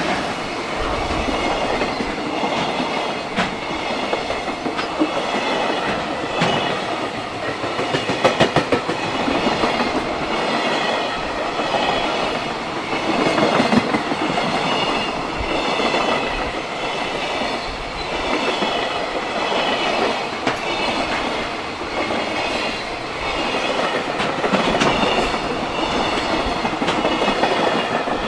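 A freight train rolling past, its wagons' wheels clacking over the rail joints.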